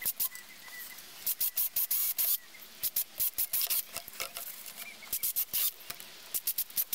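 Cordless drill boring 6 mm pilot holes through a gutter: short bursts of hissy, scratchy cutting noise as the bit bites into the gutter wall, coming in four clusters with pauses between.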